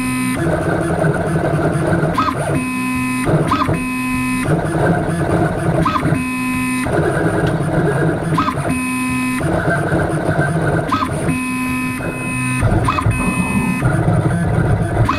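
CNC router's stepper motors whining in stop-and-start tones as the machine drags a spring-loaded diamond drag bit across a brass plate to engrave lettering. The pitch sweeps up and down on the short moves, over a steady hiss.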